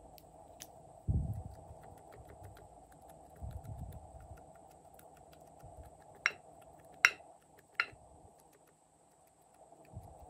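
Small plastic sprinkle pots being handled, with a couple of soft bumps, then three sharp plastic clicks about a second apart as sequins are shaken out over glue in a glass tray. There is a steady faint hum underneath.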